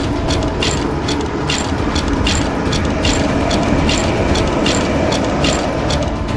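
Loud, steady low rumble with sharp mechanical-sounding ticks repeated a little more than once a second.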